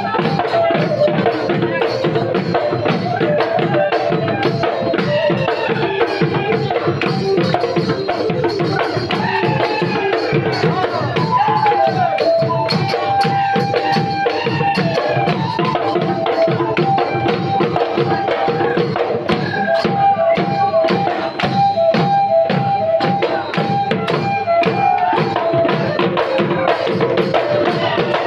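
Live Bihu music from a husori troupe: dhol drums beat a fast, steady rhythm under a sung melody that runs throughout.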